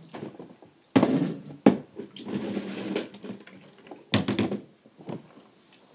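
Belongings being handled and moved about: a thump about a second in, a sharp click, a stretch of rustling, then a quick clatter of knocks a little past the middle.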